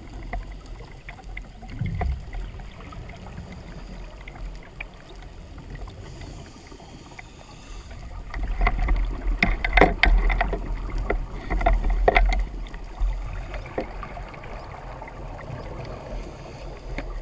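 Underwater ambience heard through a camera housing: a steady low rumble, with two louder rushes of scuba regulator exhaust bubbles about halfway through and again a couple of seconds later.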